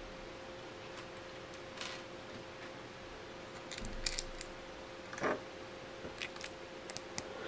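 Plastic toy building bricks clicking and rattling as they are picked up and pressed together: a few light, scattered clicks, most of them in the second half, over a faint steady hum.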